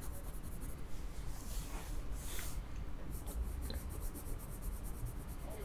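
Red colored pencil shading on sketchbook paper: faint scratching of repeated strokes, with one louder stroke about two seconds in.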